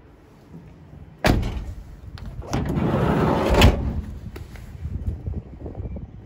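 Volkswagen Transporter van door being worked: a sharp bang about a second in, then a sliding rumble that ends in a slam.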